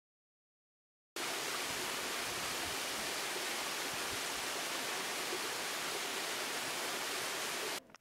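Silence for about a second, then a small forest waterfall rushing steadily, cutting off suddenly just before the end.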